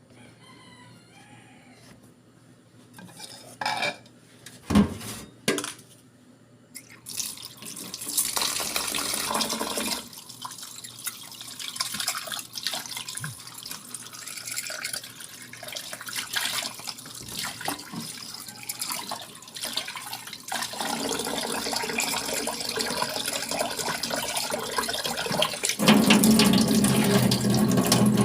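A few knocks of a pot being handled, then a kitchen tap running water into a pot, as when rinsing or measuring water for rice; the rush of water grows louder and fuller near the end.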